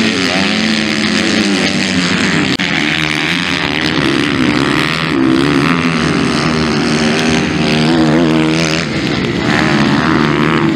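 Motocross dirt bike engines revving hard and backing off as the bikes ride the dirt track, the pitch rising and falling with the throttle. The sound breaks off for an instant about two and a half seconds in.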